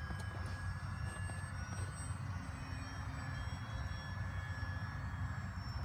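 RC foam-board Spacewalker model plane flying overhead, its motor and propeller giving a faint, steady whine over a steady low rumble.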